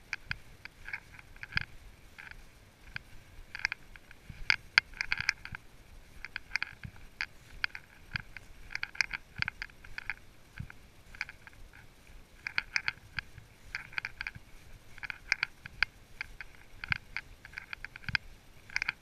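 Horse walking through dry leaf litter: irregular crunching and crackling of hooves in the leaves, with soft low thuds from the footfalls.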